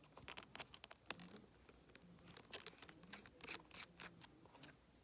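Faint, irregular small clicks and scratches of precision tools on the tiny screws and metal brackets inside an opened iPhone 7.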